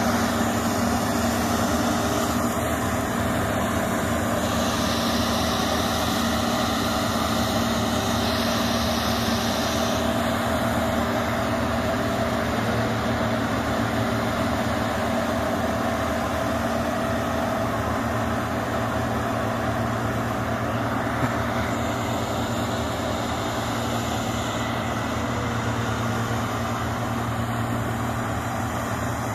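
Diesel engines of a New Holland 8060 combine harvester and a Sumitomo excavator running together, a steady, even drone.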